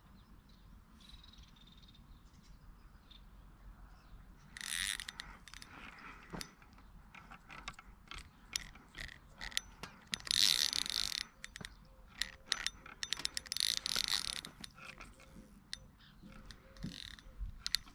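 Fishing reel clicking and ratcheting in short runs, with louder runs about five, ten and fourteen seconds in, while the line is caught on a snag.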